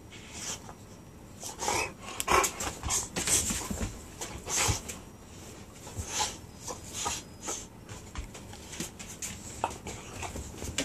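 Two boxer dogs play-wrestling, mouthing at each other: irregular short bursts of breathy dog noises and scuffling, busiest in the first half.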